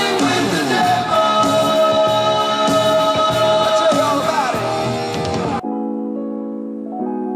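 Recorded music played back: a rock song with a singing voice and guitar, which cuts off abruptly about five and a half seconds in and switches to a quieter piano piece.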